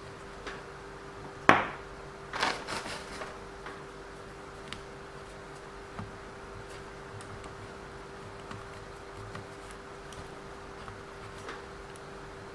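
Small hard parts and tools being handled and set down on a work surface: a sharp knock about a second and a half in, a quick clatter of clicks about a second later, then scattered faint ticks over a steady faint hum.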